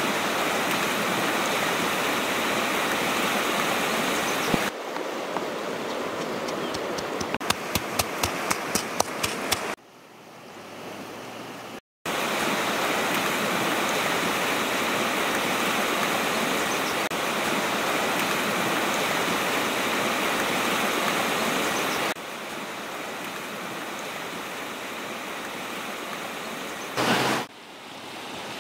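Steady rush of a fast-flowing river, which drops away and returns abruptly several times. A quick run of about a dozen sharp taps comes around the middle, and a brief louder burst near the end.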